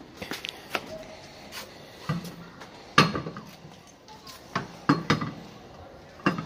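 Irregular knocks and clunks of a steel car wheel being lifted and worked onto the hub and its studs, the loudest about three seconds in, with a few more around five and six seconds.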